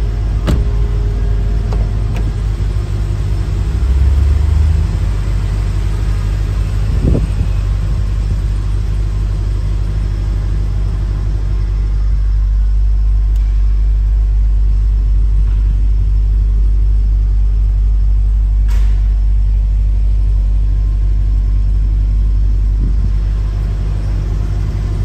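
A steady low rumble, with a few sharp clicks.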